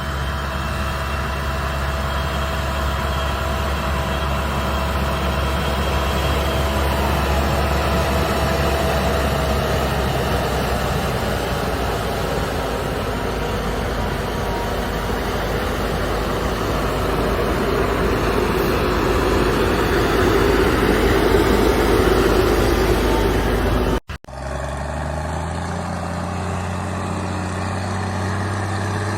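Farm machinery engine running steadily. About 24 seconds in the sound cuts off abruptly, and a different, lower-pitched engine takes over.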